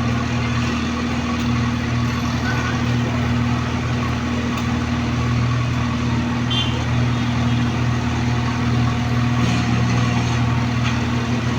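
Diesel engine of a Case 1107 road roller running steadily at a constant speed, a low, even drone.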